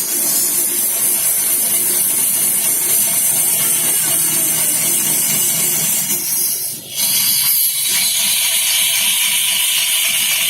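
Wood lathe running with a cutting tool shaving the spinning wood: a steady, loud hissing scrape over a low motor hum, which breaks off briefly about seven seconds in and then resumes.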